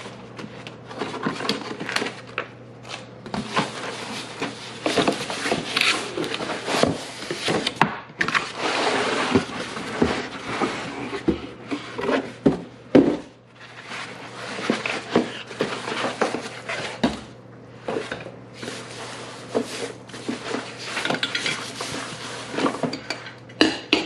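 Unboxing handling noise: a cardboard box, molded pulp packing inserts and a plastic-wrapped coffee maker being pulled apart and lifted out, with irregular rustling, scraping and knocking throughout, plus some light clatter. A faint steady hum sits underneath.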